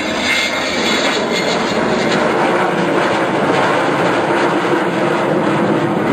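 Avro Vulcan bomber's four Rolls-Royce Olympus jet engines running loud and steady as the aircraft flies overhead in a banking turn, a dense jet rush with a faint high whine fading out in the first second.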